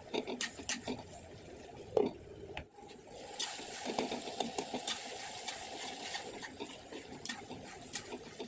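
Onions and tomatoes sizzling in oil in a kadai, with scattered clicks of a spoon against the pan. There is one louder knock about two seconds in.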